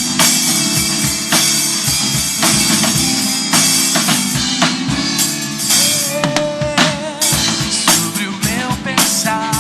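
Instrumental passage of a worship song: a band with a full drum kit playing steady kick, snare and cymbals, with a wavering melody line coming in over it in the second half.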